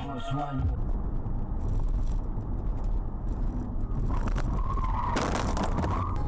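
Dashcam in-car audio: a steady rumble of engine and road noise. From about four seconds in there is a wavering high squeal, and about five seconds in a loud clatter of crash and impact noise.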